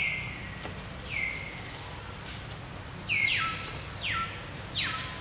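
A bird calling over and over: about six short, high notes, each sliding sharply down in pitch, coming closer together in the second half.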